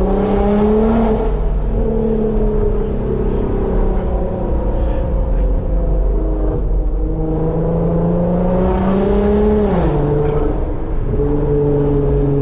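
Infiniti Q50's twin-turbo V6 with aftermarket exhaust, heard from inside the car while driving. The engine note climbs in pitch under acceleration and drops at an upshift, once about a second in and again near the end, with steady cruising between.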